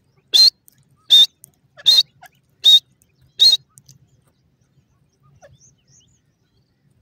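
Francolin giving five short, shrill calls in a steady series, about one every three-quarters of a second.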